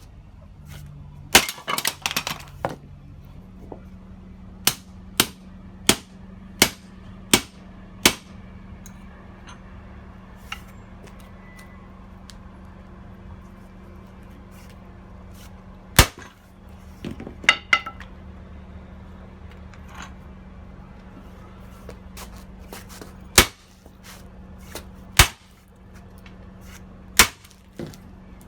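Sledgehammer blows on a hardened-steel bicycle U-lock held in a vise: a dozen or so sharp metallic impacts, some single and spaced out, some in a quick run of about six near the start, a few followed by brief ringing or clatter. The lock is being struck repeatedly to try to fracture the bent steel shackle. A steady low hum runs underneath.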